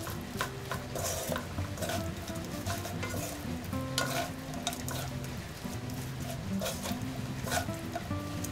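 Two spatulas stirring and tossing dried anchovies in a sticky chili-paste glaze in a stone-coated nonstick wok: irregular scrapes and soft clacks against the pan with a light sizzle. Soft background music plays underneath.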